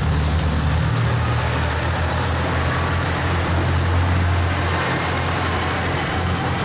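KiHa 189 series diesel railcar engines running with a steady low hum that shifts in pitch a couple of times, over the even hiss of torrential rain.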